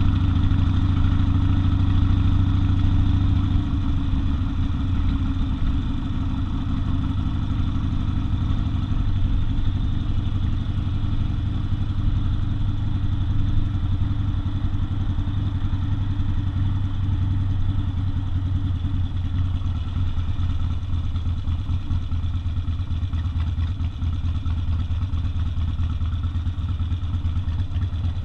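Harley-Davidson XL 1200 Custom Sportster's air-cooled V-twin engine running steadily, its note easing slightly about three and a half seconds in and then holding level.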